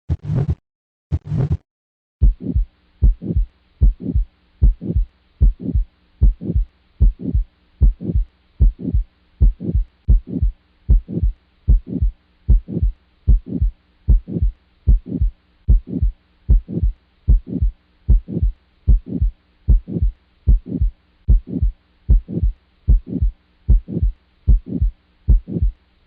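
Recorded heart sounds heard through a stethoscope, with a heart murmur, used as a teaching example of an aortic valve murmur. A few separate beats come first; from about two seconds in, a steady regular lub-dub rhythm runs at about 75 beats a minute over a faint steady hum.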